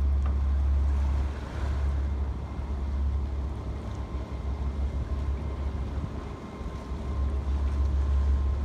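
Wind buffeting the microphone: a low rumble that swells and dips in gusts. From about four seconds in a faint steady high whine sits under it.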